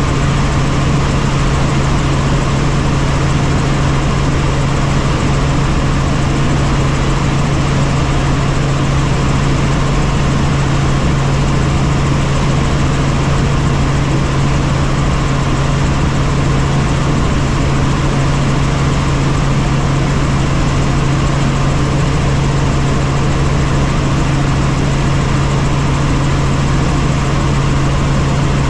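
Helicopter engine and rotor noise heard inside the cabin: a loud, steady low drone with a rushing noise over it, unchanging throughout.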